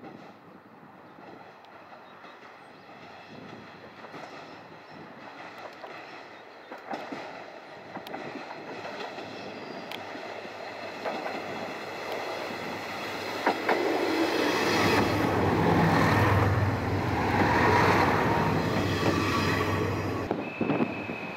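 JR West KiHa 120 diesel railcar approaching and passing close by, its diesel engine and wheels growing steadily louder, with clicks from the rail joints. The sound cuts off suddenly near the end.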